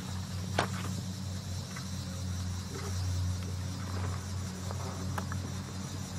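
A horse cantering loose on sand footing: scattered soft hoofbeats and a few sharper knocks, the clearest about half a second in and a pair near the end. Under them runs a steady low hum with a faint insect-like hiss.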